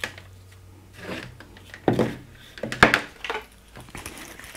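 Small plastic intercom parts and speaker wires being handled on a table: a few short rustles, knocks and rubs, the strongest about two and three seconds in.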